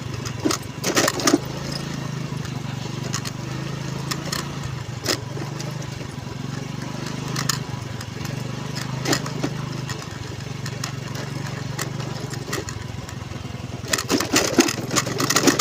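Honda Navi's small single-cylinder engine running steadily under way, with scattered knocks and rattles from the rough track that grow denser near the end.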